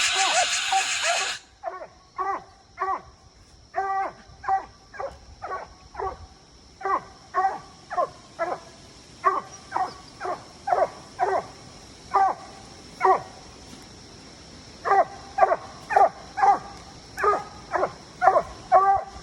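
Treeing Walker coonhound barking steadily at a tree, a fast run of loud chop barks about one to two a second with a few short breaks, the way a hard-treeing coon dog bays a treed raccoon. A short rush of noise comes in the first second, and a faint steady high tone runs underneath.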